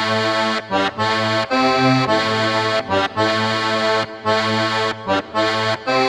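Accordion playing a traditional folk tune in short phrases separated by brief breaks.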